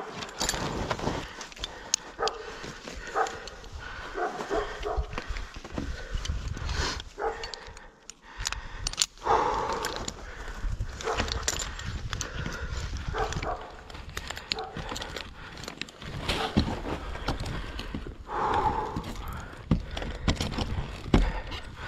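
Heavy, laboured breathing of a climber going up a wooden utility pole, with irregular sharp knocks of steel climbing spurs digging into the wood.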